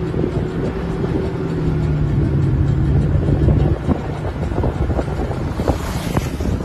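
Car driving on a rough dirt road, heard from inside the cabin: tyres rumbling and knocking over the uneven surface. A steady engine hum sinks slightly in pitch and drops away about three and a half seconds in. A brief hiss comes near the end.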